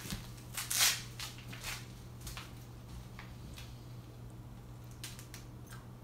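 Velcro on a Lotus Ball treat-dispensing toy rips loudly as the ball is pulled apart, one short burst just under a second in. It is followed by a few faint taps over a low steady hum.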